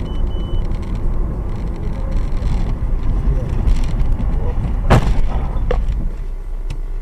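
Steady engine and road rumble inside a moving car, with a few short electronic beeps at the very start. About five seconds in comes a loud crash as the car runs into the back of the car ahead, followed shortly by a smaller knock.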